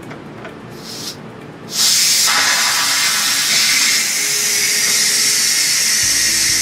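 Steam release valve of a Power Pressure Cooker XL venting. A loud hiss of escaping steam starts suddenly about two seconds in and holds steady. This is the pressure being released at the end of cooking so the lid can be unlocked.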